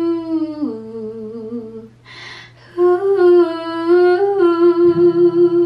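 A woman humming a slow, wordless melody to her acoustic guitar: a held note that slides down about half a second in and fades, an audible breath, then a new held note with small turns. A low guitar note is struck near the end.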